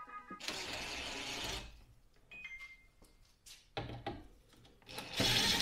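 Hands working plastic engine-bay parts off an Audi S4's intake: rubbing and scraping with scattered clicks and knocks, and a cordless driver run briefly on the engine-cover fasteners. The two louder noisy stretches come about half a second in and near the end.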